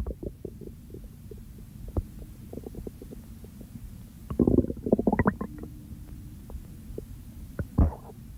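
Human stomach gurgling: a run of small pops and bubbling gurgles, with louder gurgling bursts about halfway through and again near the end.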